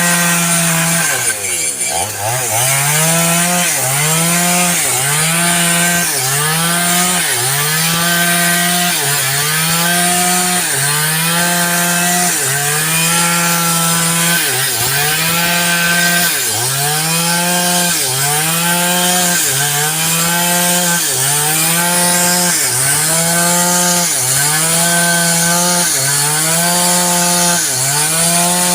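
Small engine revved up and let back down over and over, about once every second: each time the pitch climbs, holds briefly, then drops.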